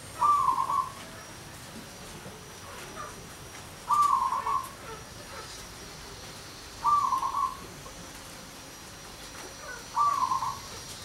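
Zebra dove (perkutut) cooing: four short, rapid cooing phrases, about three seconds apart.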